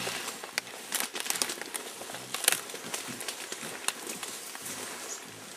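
Leafy stems and foliage rustling and snapping as a mountain gorilla pulls at the vegetation. A run of sharp cracks runs through it, the loudest about two and a half seconds in.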